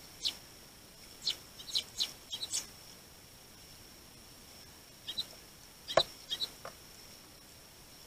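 Eurasian tree sparrows giving short chirps in irregular clusters, with a sharp click about six seconds in.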